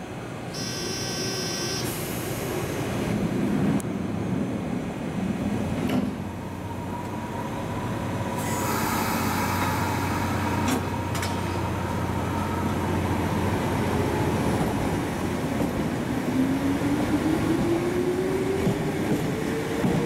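Toyama Chihō Railway 14760-series electric train departing the platform. There is a short high ringing about a second in and a burst of hiss around nine seconds. From about sixteen seconds a rising motor whine climbs steadily as the train accelerates away.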